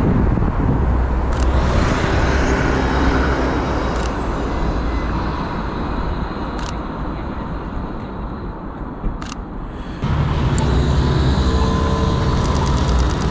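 Steady city street traffic below a bridge, with a few sharp clicks. About ten seconds in it switches to nearer traffic at a street crossing, with an engine idling steadily.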